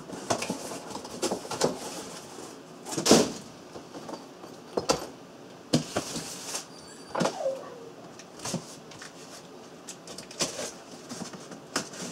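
Cardboard shipping boxes being handled on a countertop: lifted, set down and slid, with irregular knocks, scrapes and rustles, the loudest thump about three seconds in.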